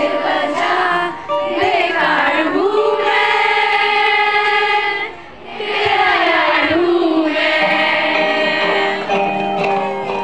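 A girl sings a Hindi song into a microphone with acoustic guitar accompaniment, and a crowd of schoolgirls sings along. The voices hold long notes, with short breaks between phrases.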